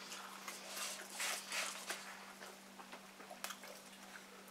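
Close-up eating sounds of people having burgers and fries: soft chewing and handling of food and paper, with a few brief rustles about a second in and a couple of light clicks later. A faint steady low hum runs underneath.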